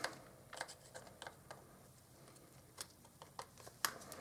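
Faint, irregular small metallic clicks and ticks as a small screwdriver tightens screws into the metal body of a Canon FD 55mm f/1.2 lens.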